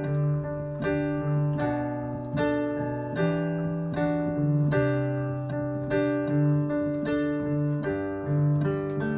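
Piano playing a steady chord accompaniment, a new chord struck about once a second, with no singing.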